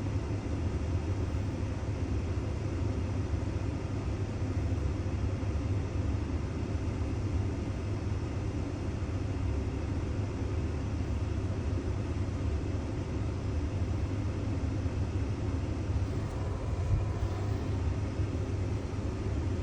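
Steady low rumble of a running vehicle engine, unchanging throughout.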